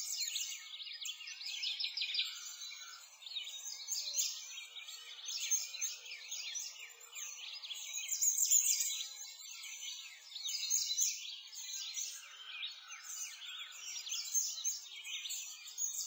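A dense, continuous chorus of many small birds chirping and twittering, with rapid short chirps overlapping throughout.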